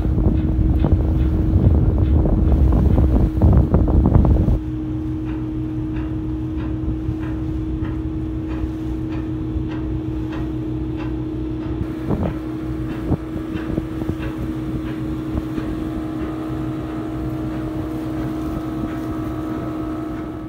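Passenger speedboat's outboard motor running steadily past on the water, a continuous engine drone. Heavy wind buffeting on the microphone covers it for the first four or so seconds, then stops suddenly.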